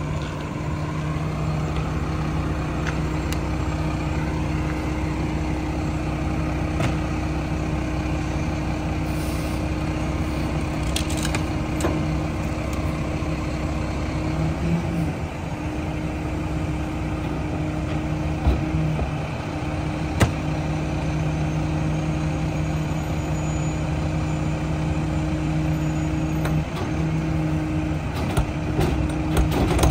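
Mack Granite garbage truck's diesel engine running steadily at idle with a constant low hum. A few sharp knocks come later on, and a cluster of clicks and knocks near the end as the rear loader's cart tipper lifts and tips a yard-waste cart into the hopper.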